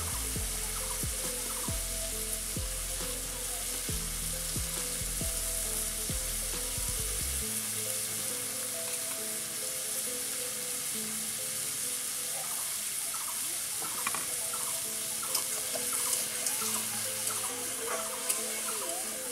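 Chicken pieces frying and sizzling in hot oil in a metal kadai. In the second half a metal spatula clicks and scrapes against the pan as the pieces are stirred. Soft background music plays underneath.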